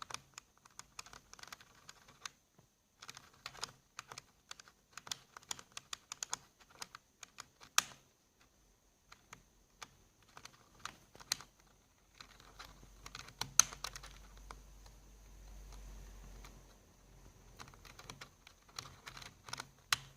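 Plastic computer keyboard keys clicking and rattling in irregular bursts as a cockatiel pecks and pries at them with its beak, with a few sharper, louder clicks. A low rumble runs through part of the middle.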